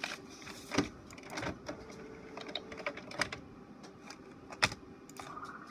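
Sheets of paper being slid and tapped into the input tray of an HP Officejet 4500 printer: rustling and scraping with scattered clicks and knocks, the sharpest about four and a half seconds in. A short hum starts near the end.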